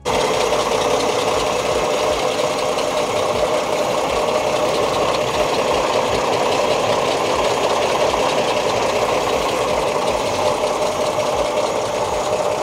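1935 Chevrolet pickup's engine idling, running steadily.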